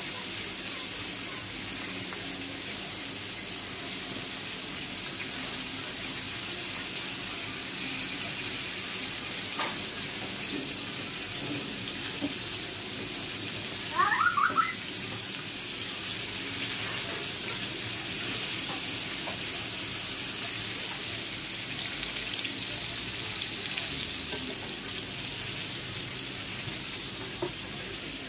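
Fish frying in hot oil in a pan: a steady sizzle. A short burst of high chirps comes about halfway through.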